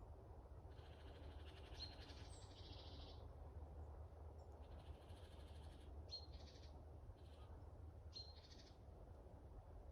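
Faint forest ambience with birds calling: bursts of high chirping, with a short sharp high note about two, six and eight seconds in, over a steady low rumble.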